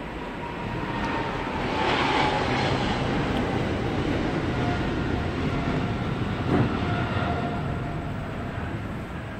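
A steady, engine-like mechanical rumble that swells about two seconds in and slowly fades, with one short knock about six and a half seconds in.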